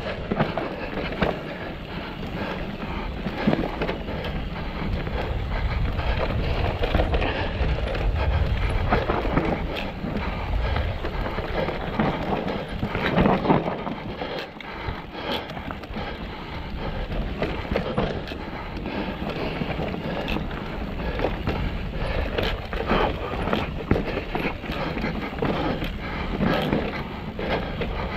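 Mountain bike descending a rough, rocky trail: tyres and bike rattling and knocking over rocks, with wind buffeting the microphone.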